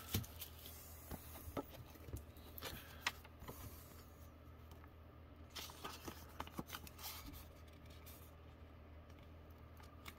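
Faint handling of a banknote and clear plastic banknote holders: scattered small crinkles, taps and scrapes, thinning out in the second half, over a low steady hum.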